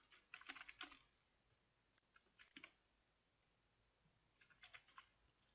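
Faint computer keyboard typing: three short runs of keystroke clicks, at the start, about two seconds in, and again near the end.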